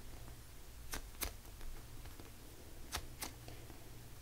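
Faint handling noise from a foam toast-loaf squishy toy being turned and squeezed in the hands: soft clicks in two pairs, about a second in and again about three seconds in, over a low steady hum.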